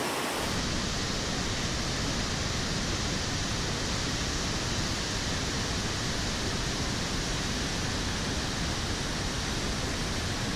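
Devil's Throat at Iguazú Falls: a huge volume of water plunging into the gorge, a steady, really loud rush with no let-up. The sound turns slightly duller about half a second in.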